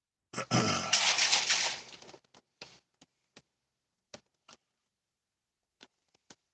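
A man breathing out loudly and breathily for about a second and a half, followed by a few faint, scattered clicks.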